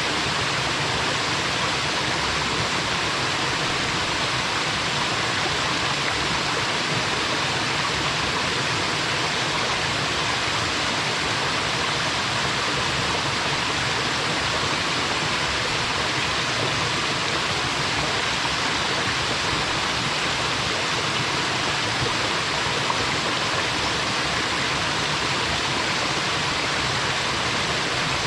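Waterfall: a steady, unbroken rush of falling water with a bubbling, plopping quality.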